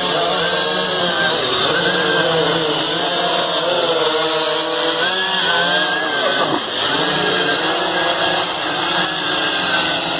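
Quadcopter drone's motors and propellers whining, the pitch wavering up and down as the throttle changes, with one quick drop and rise in pitch a little past the middle.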